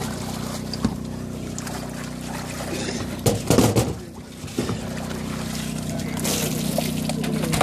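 A landing net splashes through the water of a fish transport tank, loudest about three and a half seconds in. Near the end water pours and trickles off the net as it is lifted out full of carp. A steady motor hum runs underneath.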